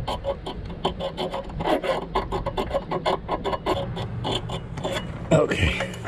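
Razor blade scraping paint off a car-body ground mounting plate in quick, even strokes, about five a second, baring the metal so the ground connection makes good contact.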